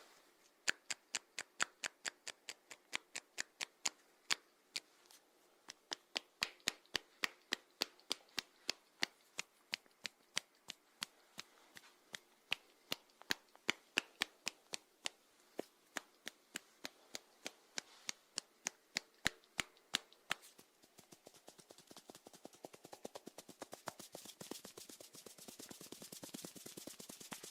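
Snails making crisp clicking sounds, about three clicks a second. About three-quarters of the way through, the clicks give way to a denser, fainter crackle.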